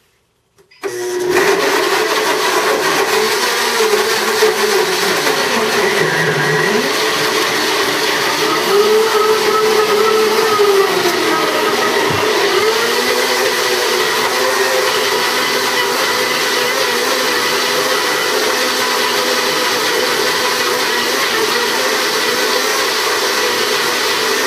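Blendtec blender running its preset smoothie cycle, blending whole ripe persimmons and a banana into purée. The motor starts abruptly about a second in, its pitch dips and rises several times over the first half as the speed changes, then it runs steady.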